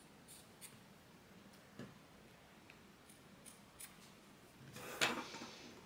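Small craft scissors snipping the string ends at a freshly tied knot, a few light clicks and snips with the loudest near the end.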